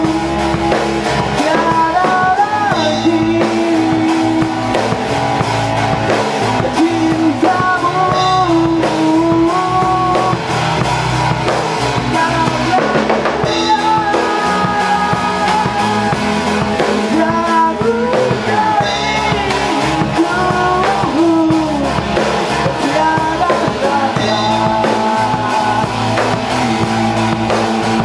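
A rock band playing live together: drum kit, bass guitar and electric guitars, loud and continuous.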